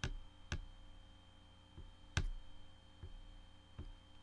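Computer mouse clicking: about six short, sharp clicks at uneven intervals, the loudest a little past two seconds in, over a faint steady hum.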